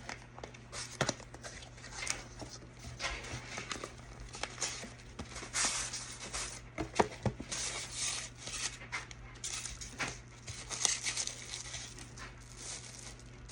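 Paper packaging rustling and crinkling as an item is unwrapped, with irregular light clicks and knocks as it is handled; the sharpest knock comes about halfway through.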